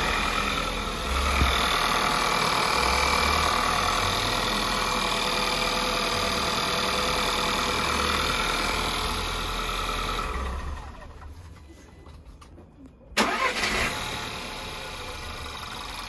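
Turbocharged four-cylinder petrol engine of a VW Polo 1.2 TSI (CBZA) idling smoothly with no chain rattle, running on a freshly fitted timing chain. About ten seconds in, the sound dies away for a couple of seconds. It comes back with a sharp click, and the engine then runs on more quietly.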